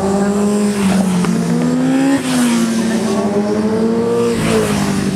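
Classic racing motorcycles running at full throttle, more than one engine heard at once: the engine pitch climbs, drops about two seconds in, climbs again and drops once more just after four seconds, as the bikes accelerate through the gears and pass.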